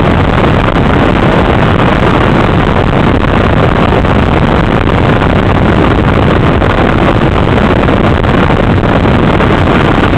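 Kitfox light aircraft's engine and propeller running steadily at takeoff power during the climb-out, mixed with heavy wind rush on an outside-mounted microphone. A loud, unbroken noise.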